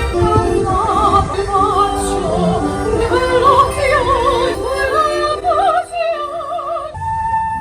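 Operatic singing with a wide vibrato over orchestral accompaniment, with more than one voice line at once; about seven seconds in, one note is held with a steady vibrato.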